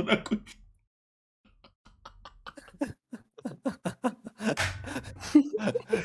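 A man laughing in short, irregular bursts behind a hand over his face. The laughter starts after a brief pause about a second in and grows louder past the middle.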